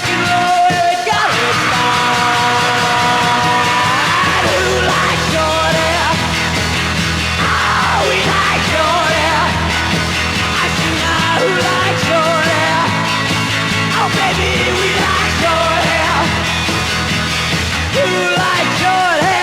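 1960s garage rock recording: a full band playing at a steady, loud level, with wavering lead lines over a steady bass.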